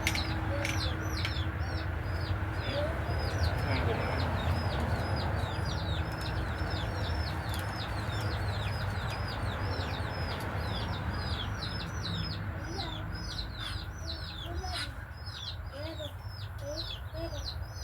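Birds calling: a rapid, steady series of high chirps, about three or four a second, with lower clucking calls joining in the second half, over a steady low rumble.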